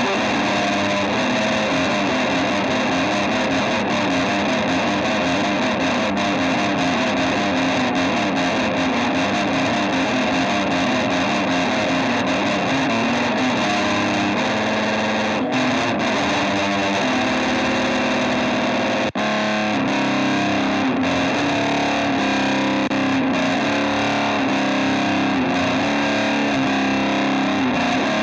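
Music: heavily distorted electric guitar playing riffs in a dense, loud, continuous band mix.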